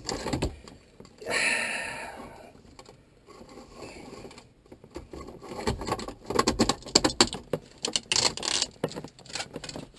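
Irregular clicks, rattles and a scrape from parts being handled in the dash during a stereo install: plastic trim, wiring and the head unit knocking and sliding. A longer scraping sound comes about a second in, and a run of quick clicks between about six and nine seconds.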